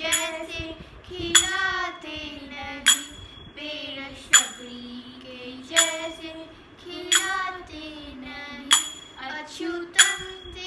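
A girl's voice singing a devotional bhajan, kept in time by a pair of small hand cymbals (manjira) struck together eight times, about once every one and a half seconds. Each strike gives a bright metallic ring that is the loudest sound each time.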